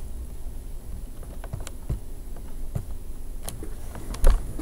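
Scattered clicks of a computer keyboard and mouse over a low room hum, with one louder knock near the end.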